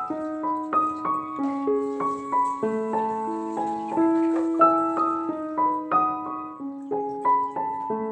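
Background piano music, a gentle melody of single notes and chords played at an unhurried pace.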